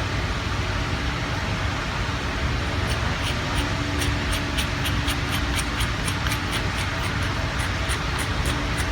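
Small benchtop lathe running steadily, with a light regular ticking, about three ticks a second, that starts about three seconds in.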